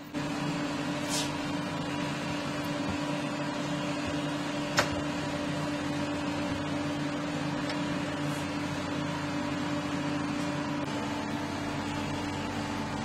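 Steady electric motor hum that starts suddenly and holds an even pitch, with a single sharp click about five seconds in.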